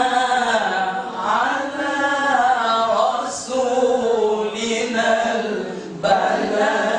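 Melodic Quran recitation (tarannum) by a single voice, drawing out long ornamented notes that bend up and down in a maqam phrase. There is a brief breath about six seconds in before the next phrase begins.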